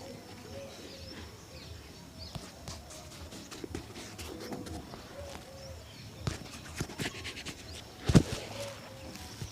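Scattered brush strokes and taps from shoe-shining work, with one louder knock about eight seconds in, over faint bird calls.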